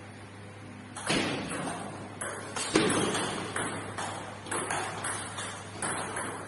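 Table tennis ball struck back and forth in a rally: sharp clicks of the celluloid ball off rubber paddles and the table top, coming about every half second to a second, each echoing briefly in the hall.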